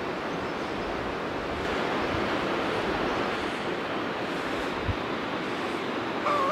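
A river rushing over rocks: a steady rushing noise that swells slightly for a couple of seconds in the middle. A brief pitched call sounds just before the end.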